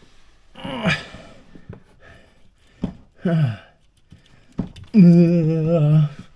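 A man's wordless vocalizing: short falling 'ooh'-like sounds, then a steady hum held for about a second near the end.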